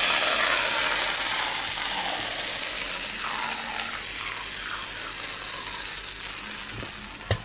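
Gillette shaving foam aerosol can spraying foam out in one long hiss that slowly fades, ending with a sharp click near the end.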